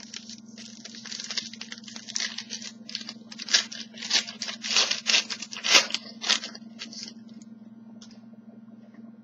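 A trading-card pack wrapper being torn open and crinkled: a run of sharp rustling tears over about seven seconds, then the handling goes quiet.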